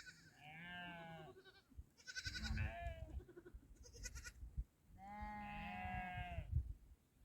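Sheep bleating: three long, wavering bleats, the last about five seconds in.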